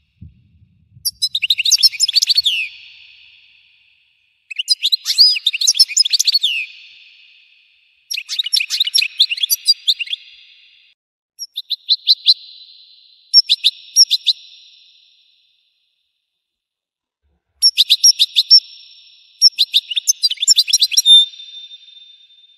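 European goldfinch singing in bursts of rapid twittering trills, each a second to a few seconds long with short pauses between. The last phrase ends in a brief held high note.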